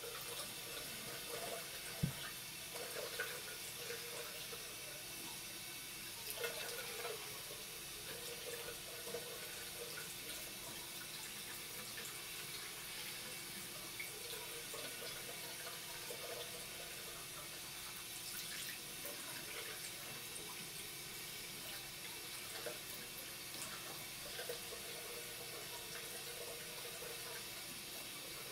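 Tap water running in a thin stream into a washbasin and down the drain, its sound changing as a cat paws at the stream. A single sharp knock about two seconds in.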